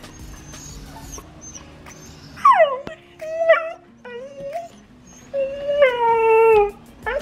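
Siberian husky howling and talking in a string of yowls: a sharply falling call about two and a half seconds in, a few shorter calls, then one long howl sliding slowly downward near the end.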